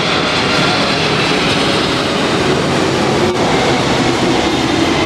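Boeing 747-400F jet engines running, a loud, steady rumble with a faint whine in it.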